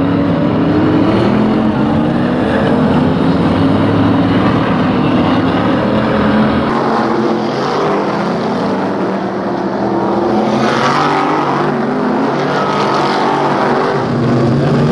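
Several V8-engined BriSCA F1 stock cars running round the track, their engine notes rising and falling.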